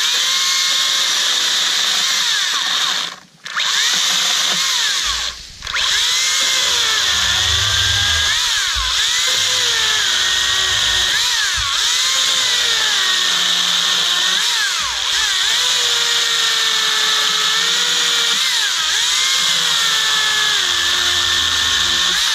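Makita DUC353 36-volt brushless cordless chainsaw cutting through a 2–3 inch gum branch, a harder wood. The motor's whine sags and recovers in pitch as the chain bites, and it cuts out briefly twice, about three and five and a half seconds in.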